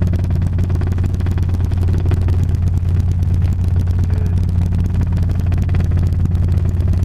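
Robinson R22 helicopter in flight, heard from inside its cabin: the piston engine and rotors make a loud, steady low drone with a fast, even pulsing.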